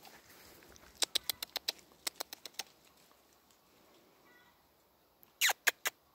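A quick run of about ten sharp clicks, roughly seven a second, then three louder clicks near the end, the first with a short falling squeak.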